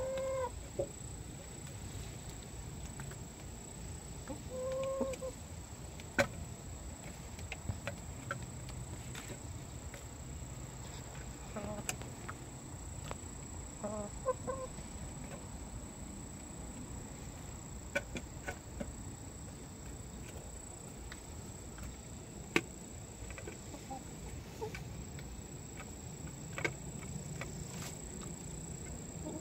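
Hens clucking in a few short calls while pecking at frozen food on a hanging plate, their beaks tapping it in sharp clicks every few seconds.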